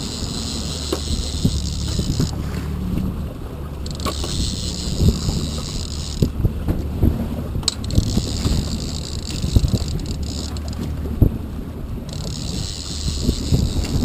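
Boat engine running steadily, with wind buffeting the microphone and water splashing behind the stern as a hooked fish is brought to the surface. Scattered short knocks from gear being handled.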